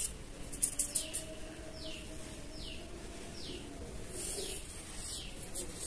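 A bird calling over and over with short chirps that fall in pitch, a little less than one a second, with a few faint clicks in the first second or so.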